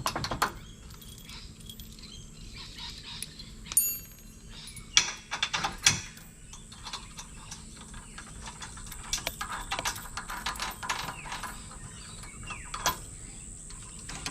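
Hand tools working on a caravan hitch: a socket ratchet clicking in short runs, with a few sharp metal clanks and knocks along the way.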